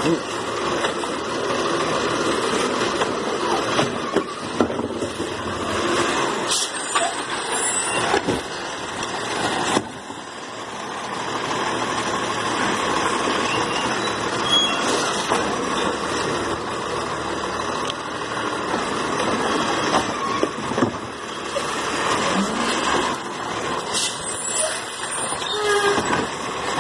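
Automated side-loader garbage truck running at the curb while its hydraulic arm lifts a wheeled garbage cart, tips it into the hopper and sets it back down, with several sharp clunks along the way.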